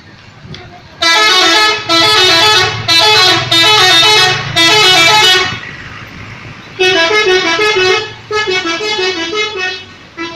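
Bus telolet horn: a multi-tone musical air horn playing a quick stepping melody of short blasts, starting about a second in, pausing briefly a little past halfway, then playing again somewhat more quietly.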